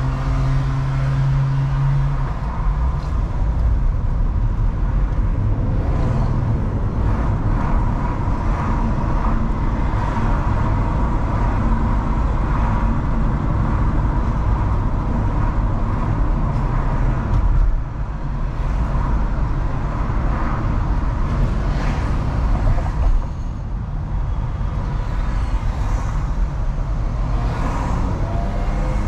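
Mercedes-Benz E-class driving through city traffic: a steady rumble of engine and tyre noise, with brief lulls twice in the second half.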